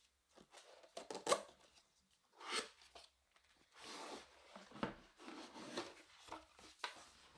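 A cardboard box being opened by hand: scattered sliding, rubbing and light taps of cardboard, with a sharper knock a little over a second in.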